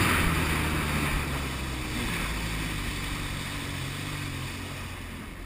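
Kawasaki Jet Ski personal watercraft engine running under way, with wind and rushing water from the spray. The sound grows steadily quieter.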